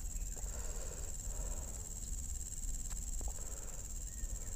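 Steady high-pitched insect chorus, a continuous buzzing drone from the riverside vegetation, with a couple of faint clicks about three seconds in.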